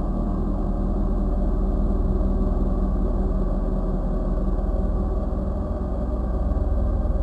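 Ambient electronic soundtrack: a steady, low synthesizer drone of sustained, ringing tones over a deep rumble, unchanging throughout.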